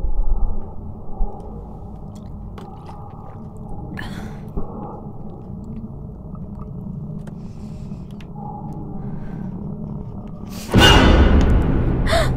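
Low, muffled horror-film score with a few faint clicks and handling noises, then a sudden loud burst of sound near the end as a jump-scare hit.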